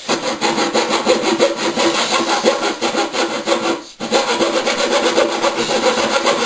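Coping saw cutting the moulded profile of a wooden skirting board, quick short back-and-forth strokes with a brief stop about four seconds in. The board's end is being coped to fit against the skirting already fixed in an internal corner.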